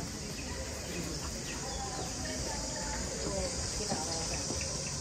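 Steady, high-pitched chorus of insects that runs without a break, with faint voices underneath.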